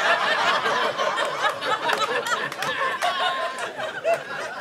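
Audience laughing at a stand-up punchline, many voices at once, loudest at the start and gradually dying down.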